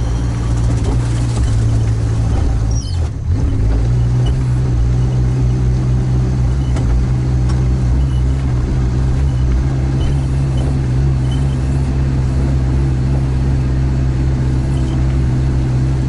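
All-terrain vehicle engine running steadily under way, a loud, even low drone, with a brief dip about three seconds in.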